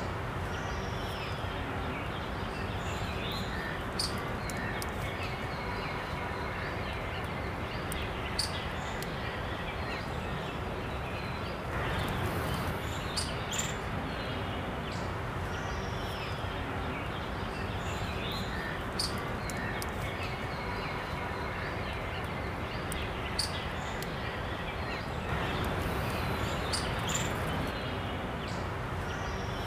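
Steady outdoor ambient noise with brief, high bird chirps every few seconds.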